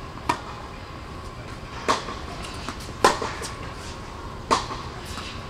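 Tennis ball struck by rackets in a rally: four sharp pops, roughly one every second and a half, each with a short echo in an indoor tennis hall. A faint steady tone runs underneath.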